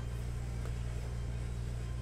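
Steady low background hum with a faint hiss over it, and one faint click about two-thirds of a second in.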